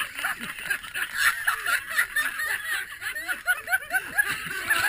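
People laughing and snickering in quick, repeated bursts of chuckles.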